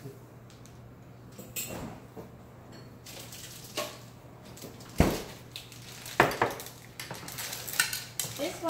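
Dishes and utensils handled on a kitchen counter: several scattered knocks and clinks of a glass baking dish, spatula and jar, the loudest about five seconds in, over a faint steady low hum.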